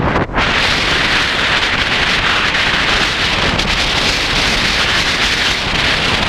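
Wind rushing over the microphone of a camera mounted on the outside of a moving car, a dense, steady noise that covers the engine and road sound, with a brief dip about a third of a second in.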